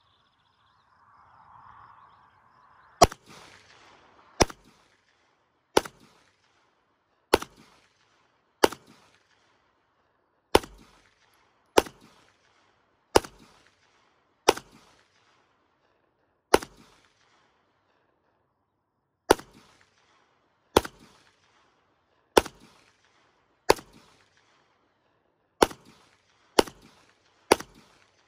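CZ Shadow 2 9mm pistol firing 115-grain rounds, about seventeen single shots at a steady pace of one every second or so, with a longer pause about two-thirds of the way through.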